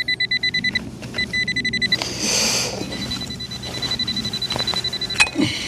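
Metal detector's pinpointing tone: a high beep pulsing rapidly, closing to a near-steady tone as it homes in on a target in the hole, then stopping about two seconds in. A short rasping noise follows.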